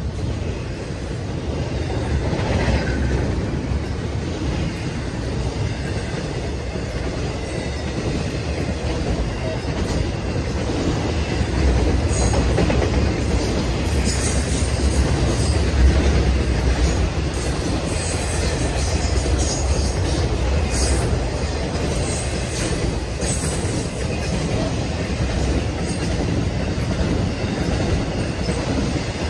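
Cars of a BNSF intermodal freight train, double-stack container and trailer cars, rolling past: a steady rumble and rattle of wheels on rail with occasional faint squeals. The low rumble swells about halfway through.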